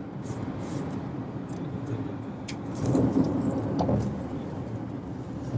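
Steady road and engine rumble inside a moving car's cabin, with a few light clicks and rattles and a brief swell in the rumble about three seconds in.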